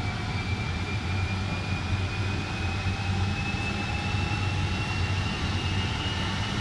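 Jet turbine on a show fire truck running, a steady low drone under a high whine that rises slowly as the engine spools up.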